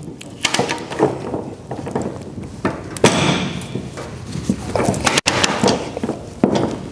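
Ratchet load binder being cranked tight on a tie-down chain: irregular metallic clicks and clanks of the ratchet handle and chain links, with a louder knock about three seconds in.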